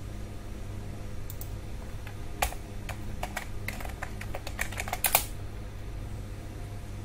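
Typing on a computer keyboard: a quick, uneven run of key presses lasting about three seconds and ending in one louder keystroke, over a steady low hum.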